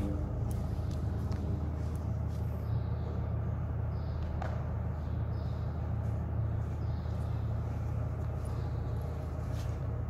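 Steady low machine hum or drone, unchanging, with faint light ticks and rustles over it.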